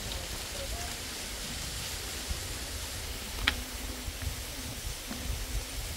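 A steady rushing noise, with a single sharp strike of a shovel blade into stony earth about three and a half seconds in.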